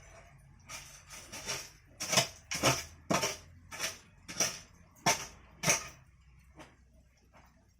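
A series of about ten sharp knocks, roughly two a second, louder in the middle and fading out near the end.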